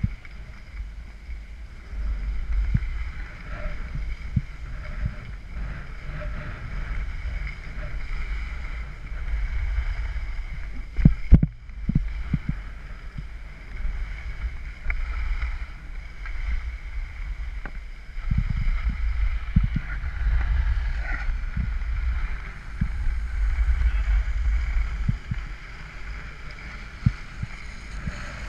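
Wind buffeting a GoPro microphone while skiing downhill, rising and falling with speed, over the hiss and scrape of skis on spring snow. A sharp knock about eleven seconds in.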